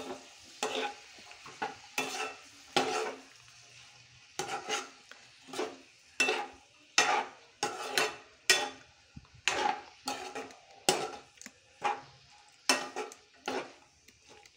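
Wooden spatula scraping and tossing chopped cabbage around a non-stick kadai in quick, uneven strokes, roughly one every half to one second, over a faint sizzle of the cabbage frying in oil.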